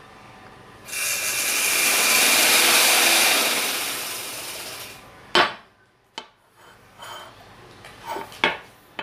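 Sheet of paper being rubbed and creased by hand for several seconds, a rasping sound that swells and then fades, followed by a few sharp taps or clicks.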